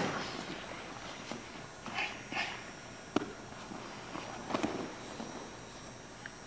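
Bodies and bare feet thumping and scuffing on folding foam gym mats, with a few separate dull thumps, a sharp one about three seconds in and a cluster about four and a half seconds in.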